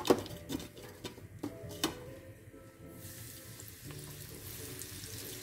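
Hot cooking oil in a wok bubbling, with a few sharp clicks in the first two seconds. About three seconds in, a steady sizzle rises as floured shrimps are dropped into the oil to deep-fry.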